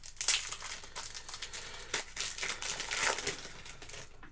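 Crinkling of a trading-card pack wrapper being handled, in irregular crackly bursts.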